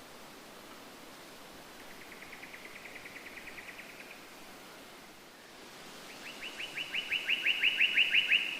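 A bird sings two rapid trills of short, evenly repeated notes: a fainter one about two seconds in, and a louder one near the end. A steady hiss of background noise runs underneath.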